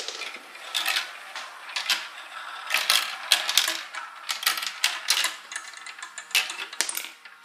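Marbles rolling and clattering down a plastic marble run, a rapid, irregular series of sharp clicks and rattles as they drop through the tubes, funnel and spinner.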